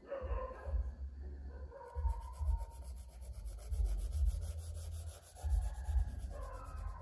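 Charcoal stick rubbing and scratching on drawing paper in repeated shading strokes, about one stroke a second.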